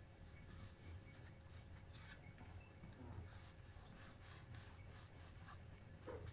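Faint rasping of a kitchen knife cutting into a raw apple on a plastic cutting board, in short repeated strokes.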